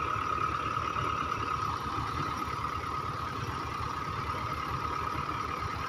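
Heavy diesel engines of a JCB backhoe loader and a farm tractor running steadily at low speed, with an even low throb and a steady whine over it.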